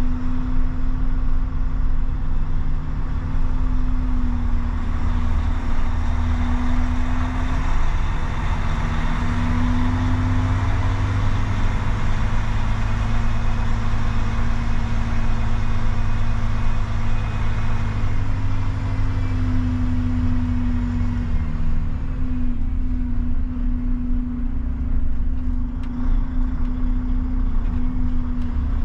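Volvo FH truck driving on the highway: a steady engine drone under road and tyre noise. The road noise is loudest in the middle and eases somewhat near the end.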